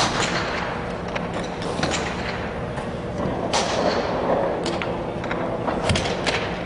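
A 5 iron striking a golf ball off a hitting mat near the end, a sharp click with a low thud under it. Several other sharp clicks come at scattered moments over a steady background noise.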